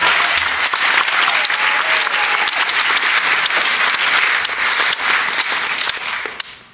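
Audience applauding: a dense round of clapping that fades out near the end.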